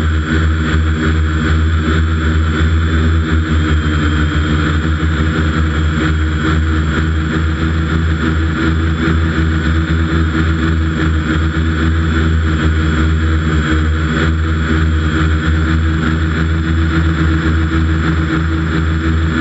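Quadcopter's electric motors and propellers running in flight, heard from its onboard camera: a loud, steady hum of several tones at once.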